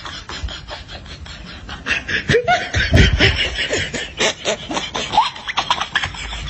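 Snickering laughter that breaks into quick, loud laughs about two seconds in, with the pitch sliding up and down.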